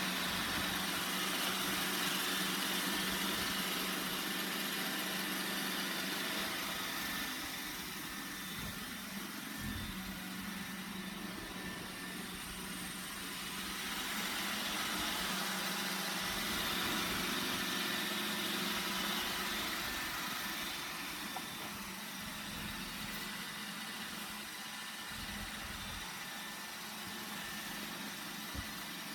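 iRobot Roomba 960 robot vacuum running, its motor and brushes giving a steady whirring hum that grows louder and quieter by turns as it moves about.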